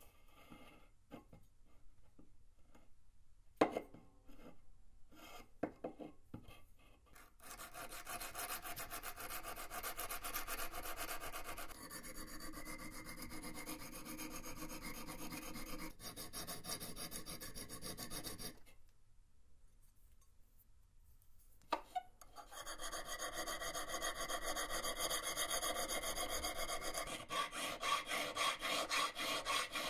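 Hand filing steel from old pruning shears with metal files, rasping stroke after stroke against the steel. It starts with a few light clicks and taps. From about seven seconds in the filing is steady, it stops for a few seconds past the middle, then resumes with quick, even strokes near the end.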